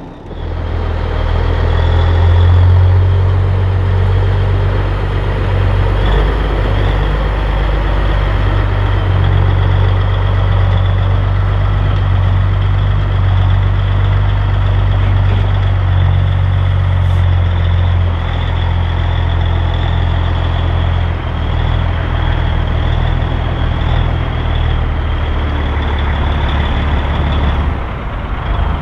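1984 Peterbilt 362 cabover's Caterpillar 3406B inline-six diesel running steadily under load, pulling a lowboy trailer carrying a garbage truck. A thin, steady high whine sits over the engine.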